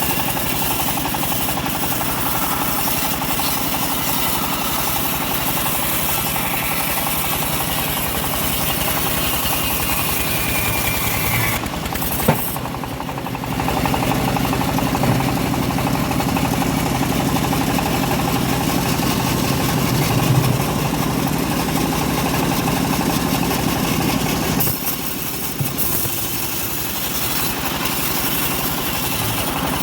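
Home-built bandsaw mill running steadily under engine power while sawing an old teak log. The sound dips briefly with a sharp click about twelve seconds in, and dips again near twenty-five seconds.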